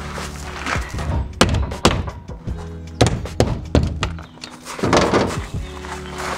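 A series of sharp wooden knocks and thunks as a plywood shipping crate is taken apart, with hand-tool blows on the crate's timber near the middle, over background music.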